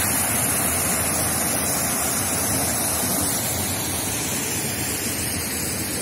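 Waterfall pouring into a rock pool: a steady rush of water, a little fainter in the second half.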